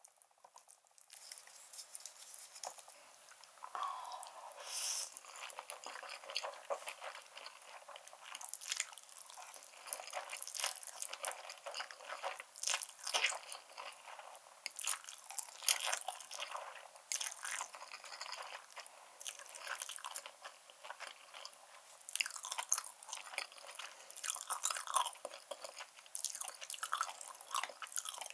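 A person chewing a mouthful of black bean noodles with beef and enoki mushrooms close to the microphone: an irregular, continuous run of short wet clicks and crunches.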